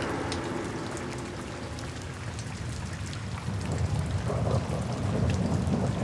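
Steady rain falling, with many small drop taps, and a low rumble of thunder building in the second half.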